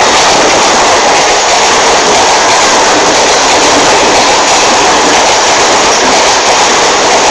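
Express passenger train hauled by a WAP-4 electric locomotive running at speed: a steady rush of wheel and rail noise with no horn.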